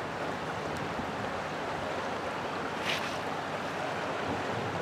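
River current rushing steadily, with a short high hiss about three seconds in.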